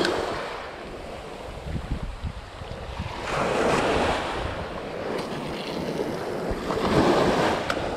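Small surf waves breaking and washing up the sand, swelling twice, with wind buffeting the microphone.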